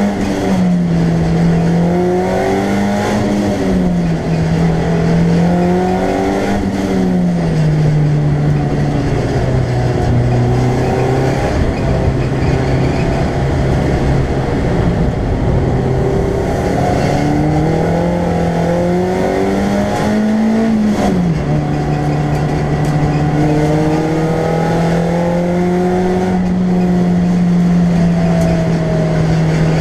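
BMW Compact race car's engine, heard inside the stripped cabin under racing load, its pitch rising and falling with the throttle. The note runs lower for a stretch in the middle, drops suddenly about two-thirds of the way in, then holds steady, over constant road and tyre noise.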